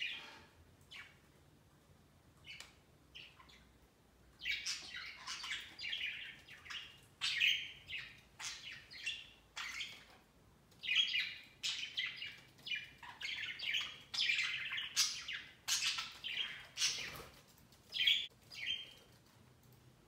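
Budgerigars chirping and chattering: a few scattered short chirps at first, then a steady run of rapid warbling chatter from about four seconds in.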